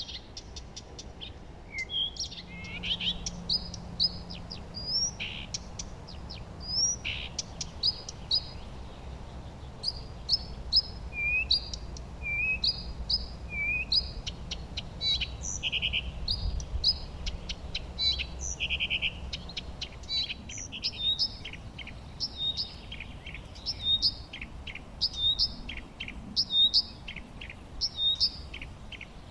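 Songbirds singing and chirping: a quick, continuous stream of short, high notes, many repeated in series, over a faint low hum.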